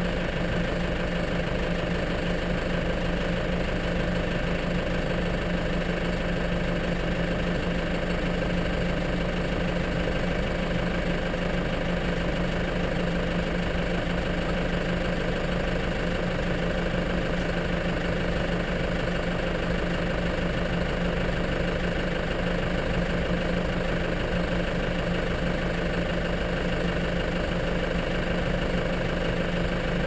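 Snow-plough vehicle's engine idling steadily, heard from inside its cab.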